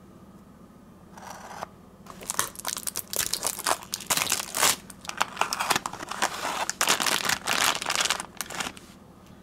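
Crinkling and rustling as a Tomica die-cast toy car's packaging is opened by hand: a short rustle about a second in, then a long stretch of dense crinkling that stops near the end.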